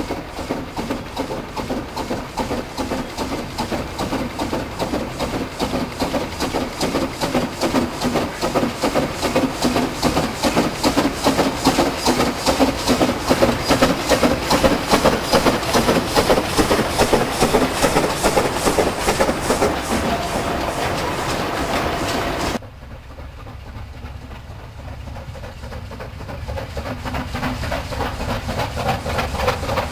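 Narrow-gauge steam train of loaded clay wagons passing, the wagon wheels making a rapid rhythmic clatter that grows loudest as the wagons go by. After an abrupt cut, a quieter steam locomotive approaching, getting louder near the end.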